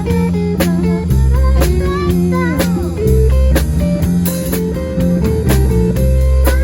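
Live rock band playing an instrumental passage: a guitar lead with bent notes over bass and a drum kit keeping a steady beat of about two hits a second.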